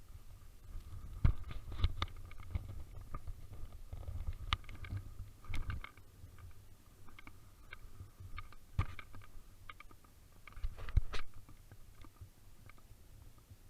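Strong wind buffeting the microphone as an uneven low rumble, with scattered sharp clicks and knocks, the loudest about a second in and near eleven seconds in.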